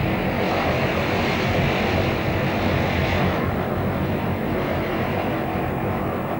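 Engine and propeller of a Grumman Ag-Cat biplane on floats, running steadily. The upper part of the sound is a little brighter for the first three seconds or so, then eases.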